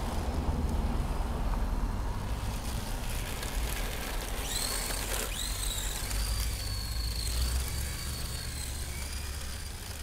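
Electric motor of a Tamiya TT-01D RC drift car whining at a high pitch. The whine starts about four and a half seconds in with a quick rise and drop, then holds and wavers. A steady low rumble runs underneath.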